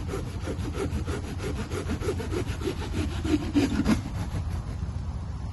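Silky Gomboy 240 folding hand saw cutting through a dead tree trunk in quick, even strokes that stop about four seconds in.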